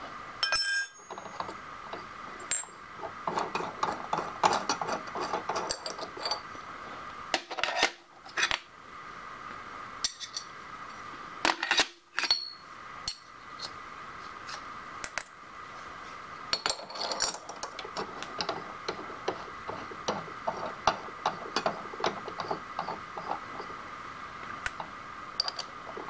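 Metal tools and cutters clinking and tapping as the end mill is changed in a milling machine's spindle, with scattered sharp clinks and a few louder knocks. A steady machine hum runs underneath.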